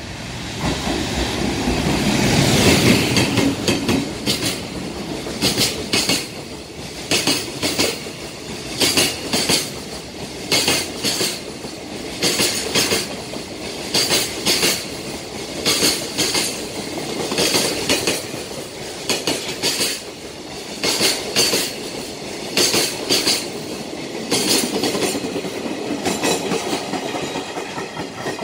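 JR Freight EF510 electric locomotive and its container wagons passing at speed. The locomotive's pass is loudest about two to three seconds in. Then the wagon wheels clack over rail joints in groups, one group roughly every 1.7 seconds, fading near the end.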